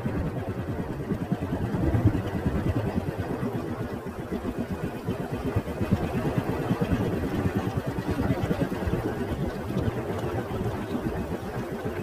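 Motorcycle engine running steadily during a ride, with a fast, even pulsing beat.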